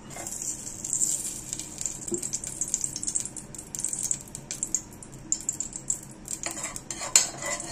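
A steel spoon clinks and scrapes against an aluminium pressure cooker as lumps of solid coconut oil are knocked off into the hot pot. The clinks are irregular and come thickest near the end, over a faint high hiss as the oil starts to melt on the hot base.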